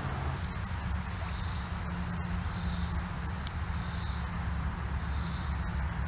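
Insects calling in summer woods: a steady high trill with a softer buzz pulsing about every second and a quarter, over a low steady rumble.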